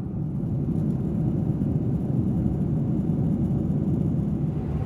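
Steady low rumble inside the cabin of a Boeing 747-400 airliner in flight, the even roar of engines and airflow.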